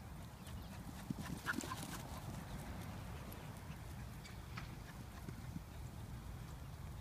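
A steady low rumble, like wind on the microphone, with a scattered handful of soft knocks and ticks, most of them between about one and two seconds in and again around four and a half to five and a half seconds.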